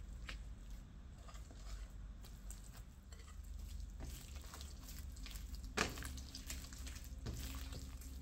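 Hands kneading soft, sticky bread dough with butter worked in on a wooden tabletop: faint wet squishing and pressing, with one sharper slap about six seconds in, over a low steady hum.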